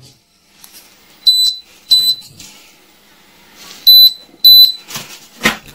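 Four short, high-pitched electronic beeps in two pairs, the second pair the loudest, followed by a sharp click near the end.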